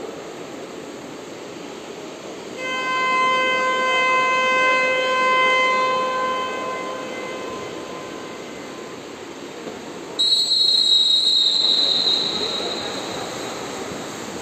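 Two long signal tones ring out over the steady din of an indoor pool hall. First comes a lower, horn-like tone with overtones that fades away slowly. Then, about ten seconds in, a higher, shrill tone starts suddenly and dies away over a couple of seconds.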